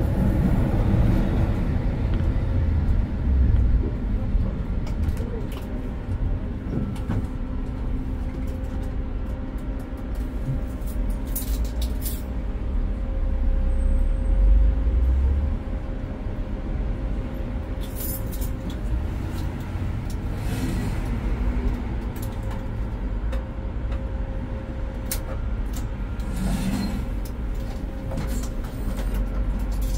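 Konstal 105Na tram heard from the cab: a steady electrical hum over a low rumble, with a few sharp clicks and knocks scattered through. The rumble grows louder, then drops suddenly about fifteen seconds in.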